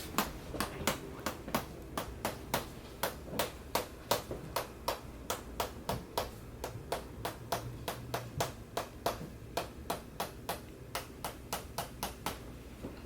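A steady series of sharp taps or clicks, about three a second.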